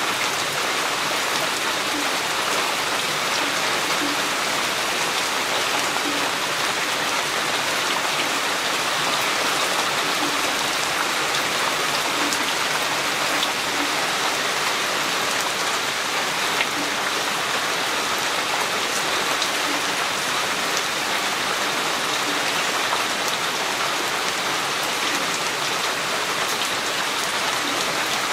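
Steady rain falling, an even patter with occasional heavier drops landing as soft taps.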